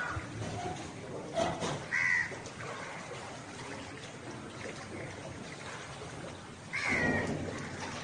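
A bird calling with short calls, twice: about two seconds in and again near the end, over a steady background hiss.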